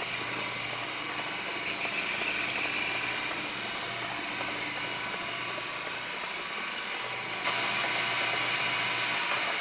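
1981 Lantaine LAM-350H metal lathe running, with a half-inch two-flute end mill turning in the chuck and milling a metal part held in the milling attachment. There is a steady motor hum under a hissing cutting noise, which grows louder about two seconds in and again about seven and a half seconds in.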